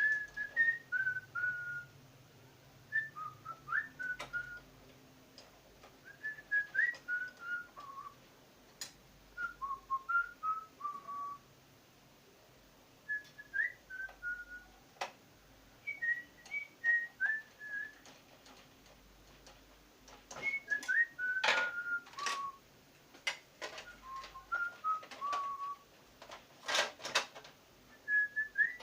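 A person whistling a tune in short phrases of stepped, mostly falling notes, over sharp clicks and taps of small tools and screws on a printer's control panel. The loudest clicks come about two-thirds of the way in and again near the end.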